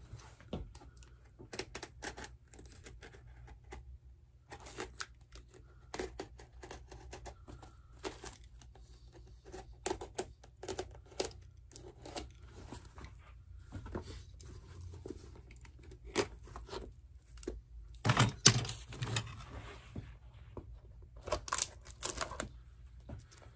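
Hand work on a dress shoe's bottom at a cobbler's bench: irregular clicks, scrapes and tearing sounds of leather and shoe parts being handled. A louder cluster of knocks comes about eighteen seconds in.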